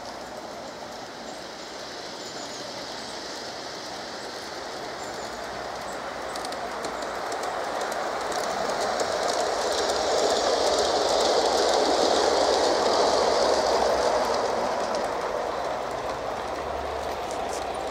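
Battery-powered LGB Corpet-Louvet model locomotive and its wagons running along garden railway track. The rolling sound grows louder as the train passes close, loudest about ten to fourteen seconds in, then eases off.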